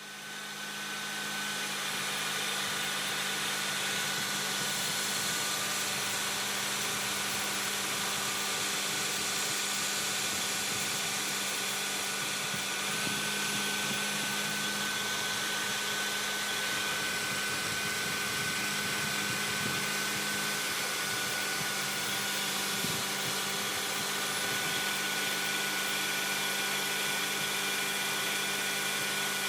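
CNC knee mill running steadily: an even hum with a steady high-pitched whine over a hiss.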